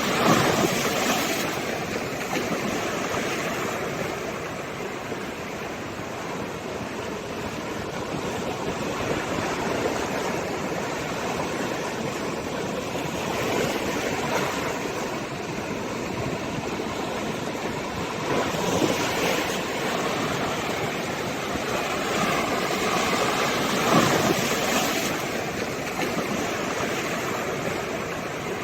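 Sea waves washing on the shore in a continuous rushing wash, with waves surging louder just at the start, about halfway through, and twice in the last third.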